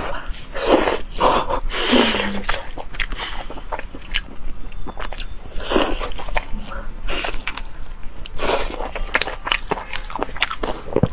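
Close-miked wet chewing and lip-smacking on fatty meat, with several louder slurping sucks, and sticky tearing as gloved hands pull the meat apart.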